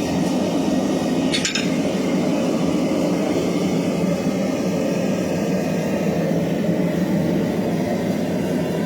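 Forge running with a steady rushing noise, and a single short metallic clink about one and a half seconds in.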